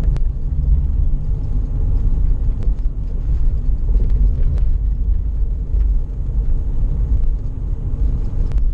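Steady road and engine rumble inside a moving Lada Priora's cabin, with a few faint sharp knocks at irregular intervals: the rattle from the rear suspension, which the owner suspects is a worn rear shock absorber.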